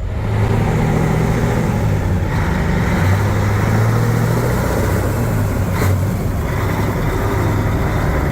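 Big diesel truck engine running loud and steady as the truck drives off, getting louder just after the start. A brief tick sounds about six seconds in.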